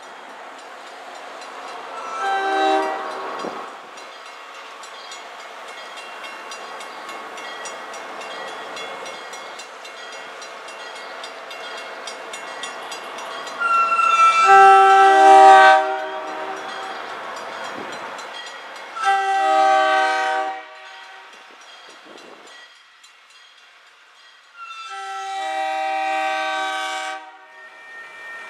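Multi-chime air horn on an MBTA commuter rail cab car sounding for a grade crossing as the train approaches: four blasts, short, long, short, then long. Each blast is a chord of several tones, over the steady, growing rumble of the oncoming train.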